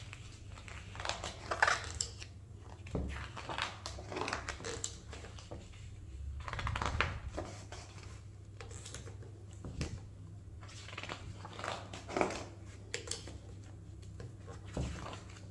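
Pages of a large hardback photography book being turned, several times over: each turn is a papery swish and rustle. A steady low hum lies beneath.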